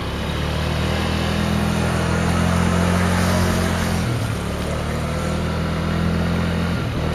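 Motorcycle engine running while the bike is ridden along a road, with a steady rushing noise over it. The engine note breaks briefly about four seconds in, then carries on.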